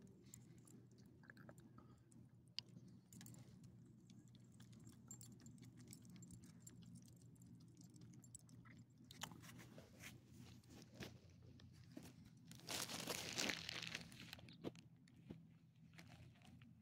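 Small dog chewing and licking up soft bits of hot dog, faint irregular smacking and clicking of its mouth. A louder rustling noise lasts a second or two about three-quarters of the way through.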